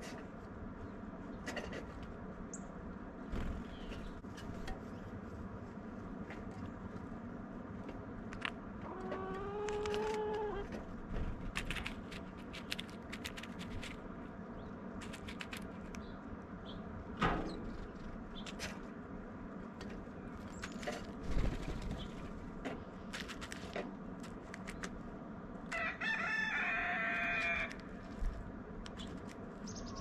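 A rooster crowing twice, once about nine seconds in and again near the end, over scattered sharp clicks and taps of birds picking at sunflower seeds and peanuts in a stone feeder.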